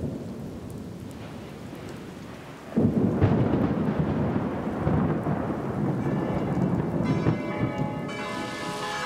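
Thunderstorm: thunder rumbling over falling rain, with a louder roll of thunder starting about three seconds in. Church bells begin ringing about six seconds in.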